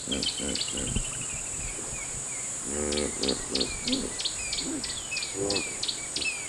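African bush ambience: a steady high insect drone and a bird calling in quick repeated chirps. From about halfway in come several short, low, pitched calls from hippos.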